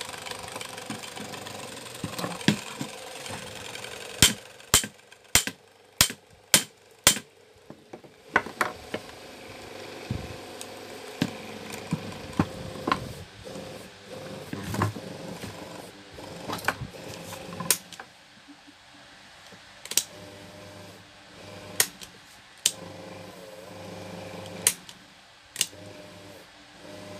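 Sharp clicks and taps of a screwdriver and hand tools on a stand fan's motor housing as its screws are worked. A quick run of about six clicks comes about four seconds in, with scattered single clicks later, over a faint steady hum at the start and again near the end.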